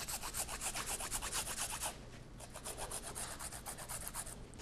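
Raw cassava root being grated on a flat handheld metal grater: quick, even scraping strokes, several a second, with a brief pause about two seconds in.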